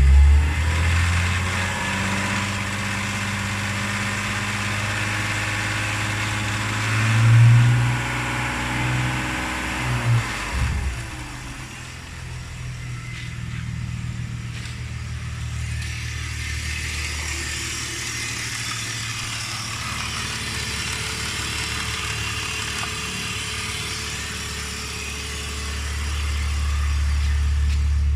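BMW Z4 E85's M54 straight-six engine running, revved up around seven and again around ten seconds in, then settling. It has a chattering rattle through the 1,500–3,000 rpm range that the owner traces to a worn-out DISA intake valve rather than the tappets.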